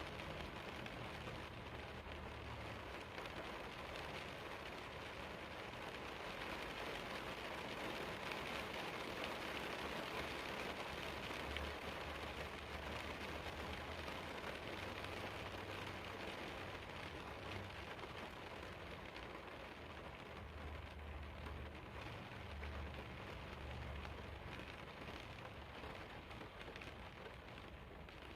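Steady rain falling, an even hiss, with a low rumble coming and going underneath.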